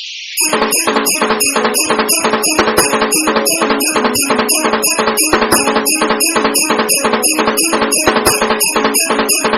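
Background music with a steady, fast beat of jingling percussion, about three strokes a second, coming in after a short whoosh at the start.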